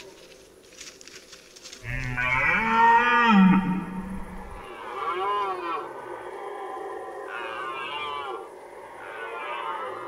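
Red deer stag roaring in the rut. One long, loud roar comes about two seconds in, followed by several shorter, quieter roars.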